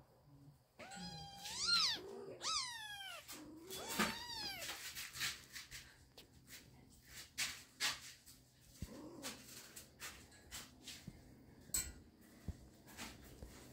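Kittens meowing three times in quick succession, each call rising then falling in pitch, then a run of light clicks and rustles as the kittens wrestle on a quilted blanket.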